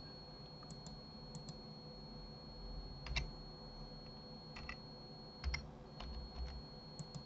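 Computer keyboard keystrokes, about a dozen short clicks in small irregular groups with pauses between, over a faint steady high-pitched tone.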